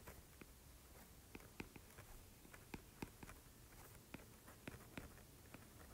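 Faint, irregular taps and ticks of a stylus writing on a tablet's glass screen, several short clicks a second over near silence.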